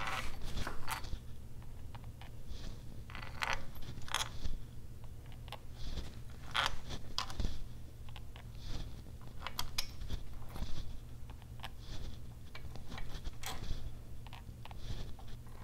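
Small steel bolts clinking, tapping and scraping in irregular short clicks as they are picked up and handled one by one, over a steady low hum.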